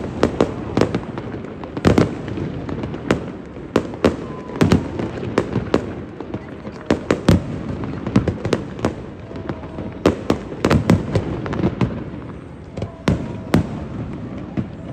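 Aerial fireworks shells bursting overhead in a quick, irregular series of bangs, at times several a second.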